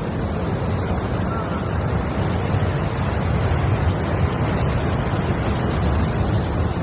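Sea waves washing on the shore, with wind rumbling on the microphone; a steady, even noise.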